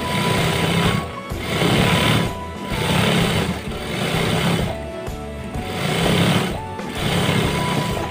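Belt-driven industrial sewing machine stitching a seam through denim trousers, running in about six short bursts of a second or so with brief pauses between them.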